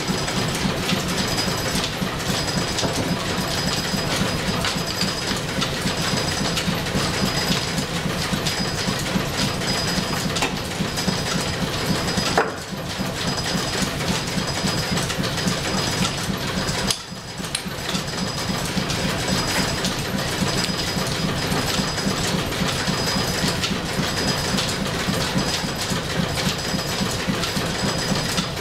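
Steam-driven overhead line shaft and flat belts running the shop's machinery: a steady mechanical clatter and whir, with a high tick recurring about once a second.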